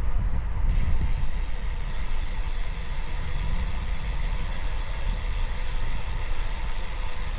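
Wind rushing and buffeting over a camera microphone on a moving road bike, a loud, steady low rumble, with a faint hiss of tyres on the road.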